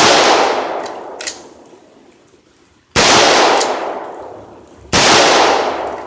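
Troy pump-action AR-15-style rifle firing .223 rounds: three shots, at the start, about three seconds in and about five seconds in, each with a long echoing decay. A short sharp click follows about a second after the first shot.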